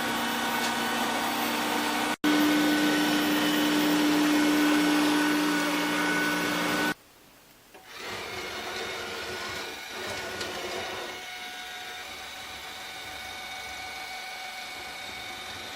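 Electrolux Pure i9 robot vacuum cleaner running, a steady motor hum with a held tone. It cuts out abruptly about 2 seconds in and again about 7 seconds in, then resumes more quietly from about 8 seconds.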